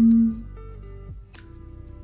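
Soft instrumental background music with held notes; a loud note dies away about half a second in, leaving quieter sustained notes.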